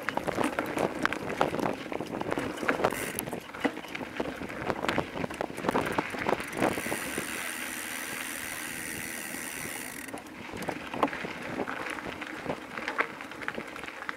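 Bicycle rattling over a rough dirt trail, with many small knocks and clatters from the tyres on stones and the bike shaking over bumps. For about three seconds in the middle it rolls more smoothly with a steady high whirr.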